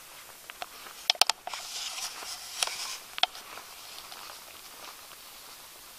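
Handling and movement noise close to the microphone: three sharp clicks about a second in, then a couple of seconds of rustling, and one more click just after three seconds.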